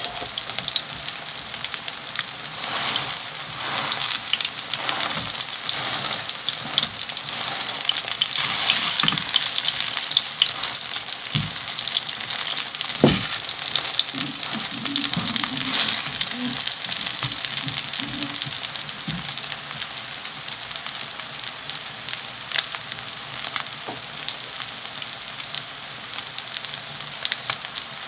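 Food frying in oil in a pan: a steady sizzle with fine crackling. Two sharp knocks from a utensil come near the middle.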